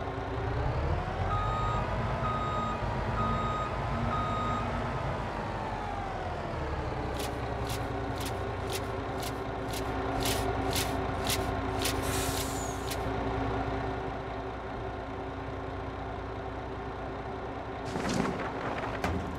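Truck engine revving up and settling back while the reversing alarm beeps four times. It then runs steadily while sharp clicks come about twice a second for several seconds, followed by a brief hiss and a short rush of noise near the end.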